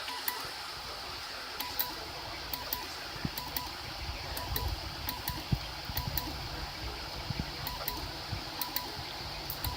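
3D printer at work: its cooling fans run steadily while the stepper motors give short whining tones and irregular clicks, and a low motor hum comes in about four seconds in.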